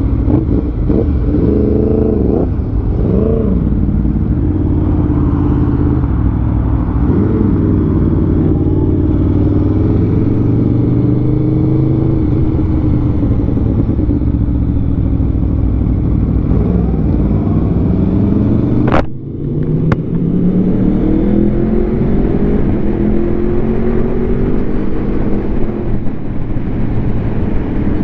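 2021 Aprilia Tuono V4 engine through an SC Project SC1-R slip-on exhaust under way, its pitch rising and falling with the throttle. There are quick rev blips in the first few seconds, a short sharp break about two-thirds of the way through, then a long pull climbing up through the revs.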